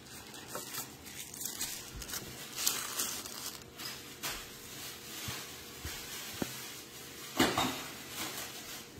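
A thin protective wrapping sheet rustling as it is pulled off a plastic handheld thermometer display unit, with light clicks of the plastic case being handled. The rustle grows louder briefly near the end.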